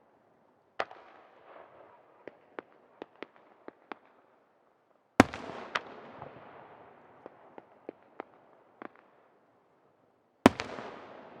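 Aerial firework shells bursting: three loud booms about five seconds apart, each followed by a scatter of smaller sharp pops and a fading crackle.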